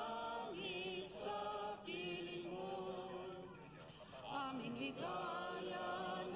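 Choral singing: several voices holding long, wavering notes that change about every second, with a dip in level around four seconds in.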